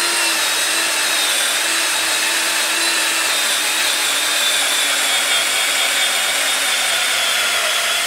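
Cordless drill spinning a rubber pinstripe-remover eraser wheel against an aluminium alloy wheel, rubbing off leftover wheel-weight adhesive pads. It gives a steady, high whine over a rubbing hiss, and the whine dips slightly in pitch as it goes.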